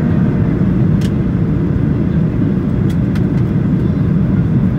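Steady low rumble inside the cabin of a Boeing 737-800 in descent: its CFM56-7B turbofan engines and the airflow over the fuselage, heard from a window seat over the wing, with a couple of faint ticks.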